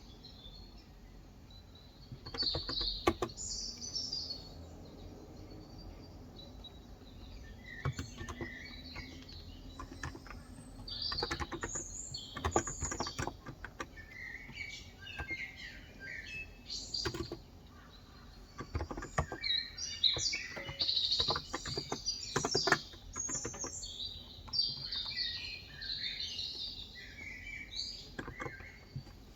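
Birds chirping and singing in repeated short calls, over intermittent bursts of typing on a Cox Endeavour electro-capacitive tenkeyless keyboard with light 35 g switches.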